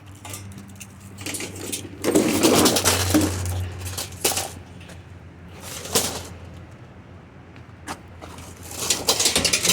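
Scrap metal clattering and clanking as pieces are shifted and packed into a load, in bursts: a long rattle about two seconds in, a sharp clank about six seconds in, and another rattle near the end.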